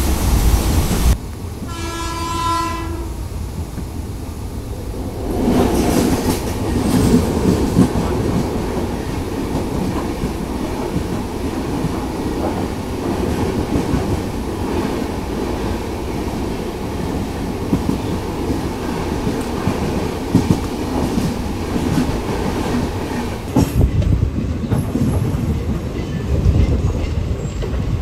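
A train horn sounds once for about a second. Then comes the steady rumble and clatter of an express train passing close by on the next track, heard from an open coach door. Near the end, the clatter of a train's wheels rolling into a station.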